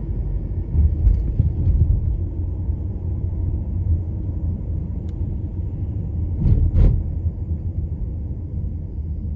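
Steady low rumble that rises and falls, with a few faint clicks about a second in and two short louder bumps near the end.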